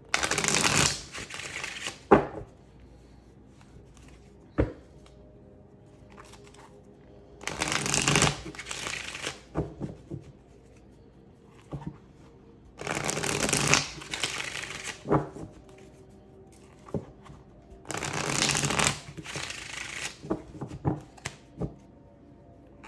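A deck of tarot cards being shuffled in four bursts of about two seconds each, with single sharp knocks between the bursts.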